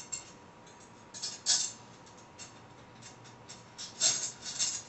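Small metal dish-rack parts clicking and rattling as they are handled and fitted by hand. The light clinks come in two louder clusters, about a second and a half in and around four seconds in, with a few scattered ticks between.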